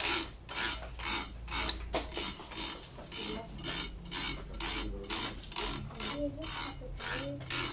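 Hand tool drawn repeatedly across the freshly tensioned BG66 Ultimax strings of a badminton racquet, at about three quick rasping strokes a second. It is the stringer straightening the strings so they sit evenly after stringing.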